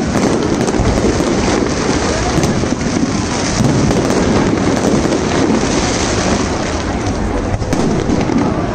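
Fireworks going off in quick succession: a steady, dense run of bangs and crackles.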